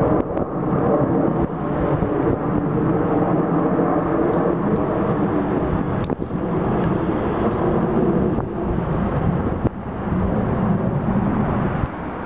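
Twin-engine jet airliners passing low overhead, their engines a loud, steady rumble. The sound breaks off suddenly and changes about 6 and 10 seconds in.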